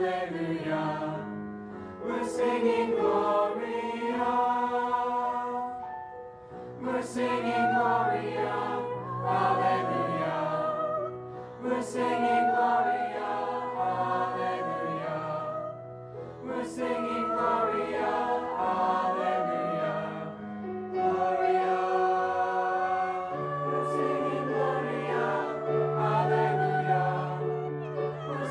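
Mixed choir of teenage girls and boys singing in parts, several voice lines moving together in phrases with short breaks between them.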